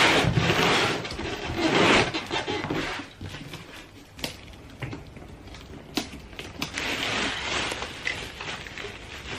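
A cardboard shipping box being cut and torn open, with loud tearing and rustling in the first two seconds and a few sharp clicks after. Near the end, plastic wrapping crinkles as the packed scooter inside is handled.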